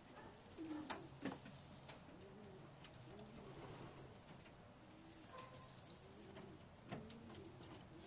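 Domestic pigeons cooing over and over in low, rolling calls, with a few sharp clicks, the loudest about a second in and another near the end.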